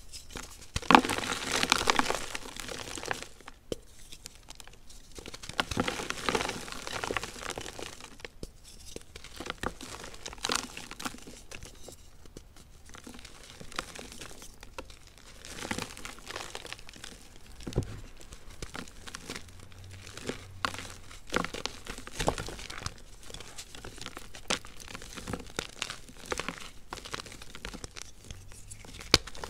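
Hands crushing and crumbling slabs of gym chalk into a tray of loose chalk and baby powder: dry crackling crunches and gritty crumbling in irregular bursts, with a sharp snap here and there.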